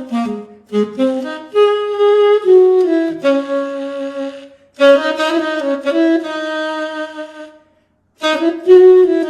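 Sampled tenor saxophone (VHorns virtual instrument) played from an EWI USB wind controller, a solo melodic line: a few quick short notes, then longer held notes. It stops briefly near the end, and a new phrase begins.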